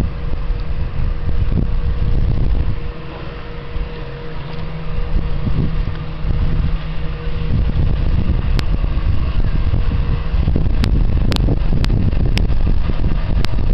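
Steady low rumble of boat engines, from the passing lake freighter and a small outboard motorboat close by, with a steady hum that stops about ten seconds in. Several sharp clicks come in over the last few seconds.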